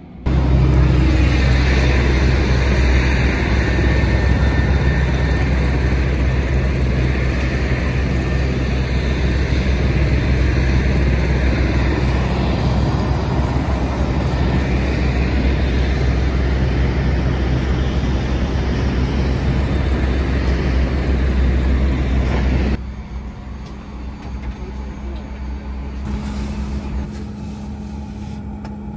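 Aircraft de-icing: de-icing fluid spraying onto a Dash 8 Q400 over the deep hum of the de-icing truck's engine, a loud, steady rush that cuts off suddenly about two-thirds of the way through. A quieter steady hum follows, with a short burst of spray near the end.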